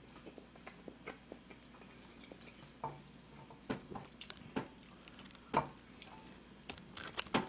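Eating sounds: wooden chopsticks clicking against a ramen pan and bowl as noodles are served and eaten, with soft chewing. Light scattered clicks, with a few louder ones in the middle and near the end.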